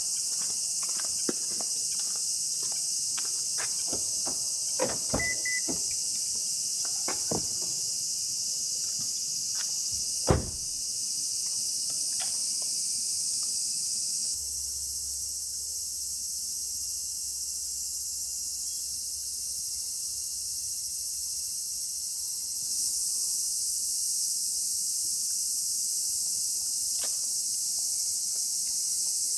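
Steady high-pitched chorus of summer insects, with scattered small clicks and knocks of gear being handled over the first third and one louder knock about ten seconds in.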